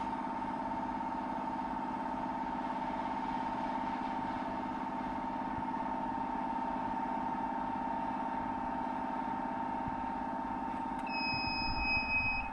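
Vacuum forming machine running with a steady electrical hum. About a second before the end, a high-pitched electronic buzzer starts beeping, first held and then in short repeated pulses.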